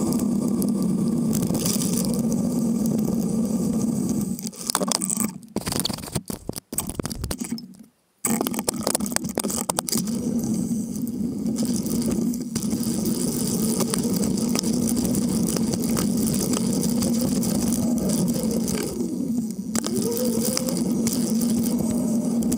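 Riding noise picked up by a camera mounted on a moving bicycle: steady wind and road rumble with rattling from the mount. The sound breaks up and drops out almost completely for a moment about five to eight seconds in.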